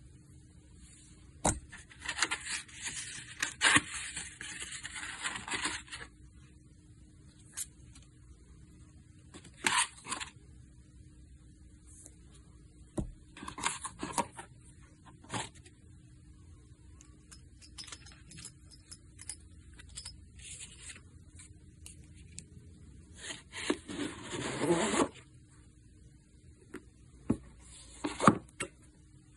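Hands handling watch packaging in short bursts: a fabric pouch and a paper booklet rustling, and card and paper scraping against a cardboard presentation box, with several sharp taps. Near the end a leather watch pouch is pushed into the box.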